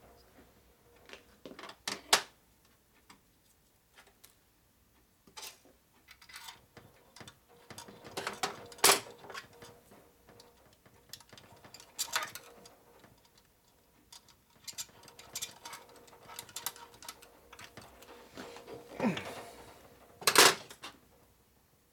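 Hand tools and metal engine parts clinking and tapping against an aluminium Harley-Davidson knucklehead crankcase and its steel workbench while the gearcase cover is fitted: scattered clicks and knocks with pauses between. A louder clatter comes about nine seconds in and another near the end.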